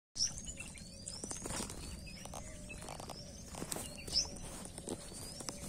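A bird repeating a thin, rising whistled call roughly once a second, over a faint steady high hum, with a few light taps.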